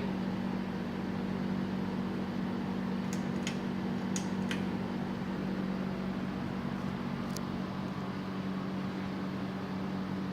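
Uchida Kiev four-blade ceiling fan running on its high speed setting, a steady low hum. A few faint ticks come about three to four and a half seconds in and again near seven seconds.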